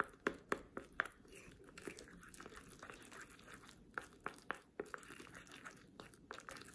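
Wooden craft stick stirring and mashing a wet, gummy paste of soaked wafer paper in a small bowl: soft squelching with irregular clicks and taps of the stick against the bowl.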